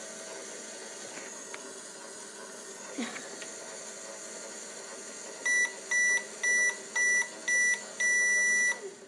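Toy microwave beeping: five short electronic beeps at one high pitch, about two a second, then a longer final beep, signalling the end of its pretend cooking cycle. Before the beeps there is a steady hum with a few light clicks.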